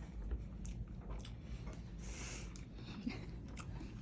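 Faint chewing and small mouth clicks from someone eating chicken adobo, with a brief hiss about halfway through.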